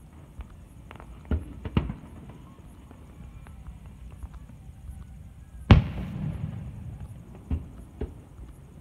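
Aerial firework shells bursting: about five sharp bangs, the loudest near two-thirds of the way in with a rolling rumble after it, and faint crackling between them.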